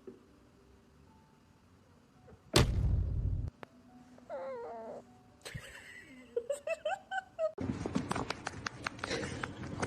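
A sudden loud thump with a low rumble, then a wavering animal call and a run of short rising calls, followed by a rapid clatter of clicks.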